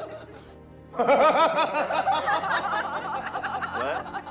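Loud, hearty laughter over background music, breaking in about a second in and running in quick repeated peals.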